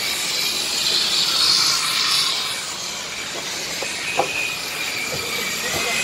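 Radio-controlled model racing trucks running around the track, their motors making a high-pitched whine that swells and fades as they pass.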